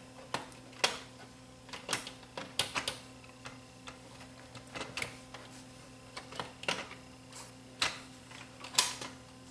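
Irregular sharp clicks and light knocks of the Teac 850 cassette deck's metal chassis and parts being handled and set back into the case, over a faint steady hum.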